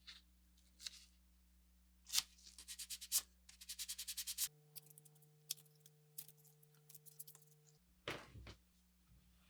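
Short runs of rapid hand scraping or rubbing strokes, several a second, with scattered ticks and scrapes between them, over a faint low electrical hum.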